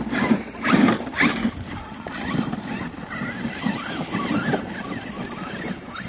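Electric RC monster truck climbing a loose dirt hill: its motor whine rises and falls with the throttle while the tyres churn through dirt and clods. There are a few loud scrabbling bursts in the first second and a half.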